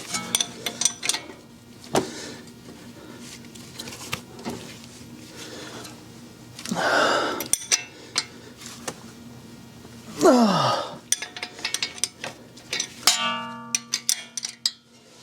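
Metal clinks and clicks of a ratchet wrench and socket on the wheel hub assembly's bolts, with a ringing metallic tone near the end. Two louder breathy vocal sounds of effort come in the middle, the second falling in pitch.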